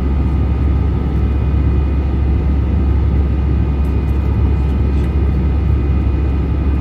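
Cabin noise of an Airbus A320-216 during its climb just after takeoff, heard from a window seat by the wing: the CFM56 turbofan engines give a steady low roar with a few faint steady tones above it.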